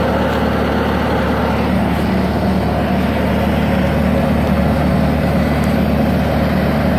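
Bobcat S300 skid-steer loader's diesel engine running steadily at a constant speed.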